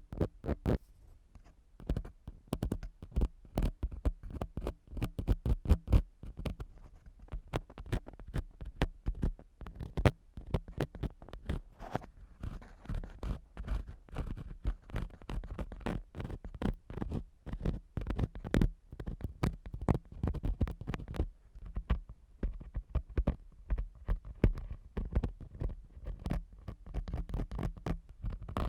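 An ear pick and cotton swab are scratching and rubbing in a microphone's ear for ASMR. Close contact with the mic gives dense, irregular scraping strokes with deep, muffled thumps.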